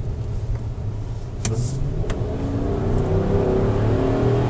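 Chevrolet Suburban's 5.7-litre V8 running under way, its note rising and getting louder from about a second and a half in as it accelerates. Two short sharp clicks near the middle.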